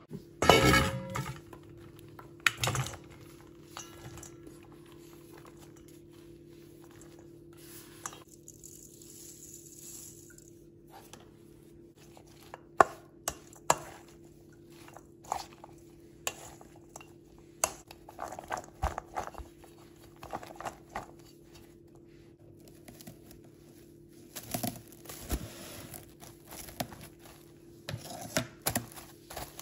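Intermittent kitchen clatter: a wooden spoon knocking and scraping against a stainless steel bowl as julienned zucchini is tossed. Near the end, plastic cling film crinkles as it is stretched over the bowl.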